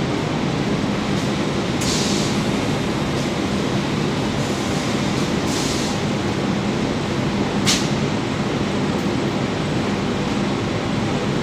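Automatic bag opening and emptying machine running: a steady mechanical hum, with a few short hisses and one sharp click about eight seconds in.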